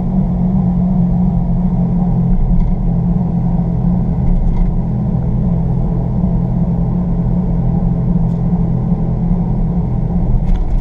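Steady low growl and road noise inside the cabin of a 2015 Jeep Grand Cherokee at road speed, coming from the driver's side front wheel bearing, which the owner believes is worn.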